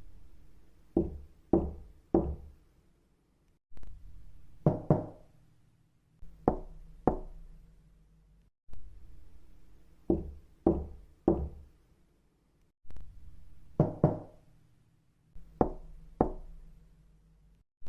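Knocking on a door: short sets of two or three raps, with a pause between each set, plus a couple of single heavier knocks.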